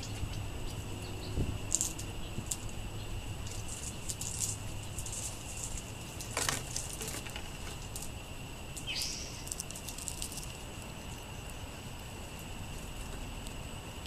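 A small songbird's wings flutter briefly as it takes off, about six and a half seconds in, among scattered light ticks. A short falling chirp follows a couple of seconds later, over a faint steady high tone.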